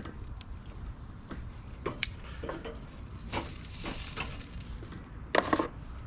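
Bratwursts sizzling on a charcoal kettle grill, a soft steady hiss. Metal tongs click now and then against the grate and the foil tray, with a louder clack about five seconds in.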